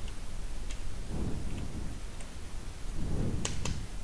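A few faint computer keyboard keystrokes, single sharp clicks spread out, over a steady low hiss and rumble with two soft low rushes of noise, about a second in and about three seconds in.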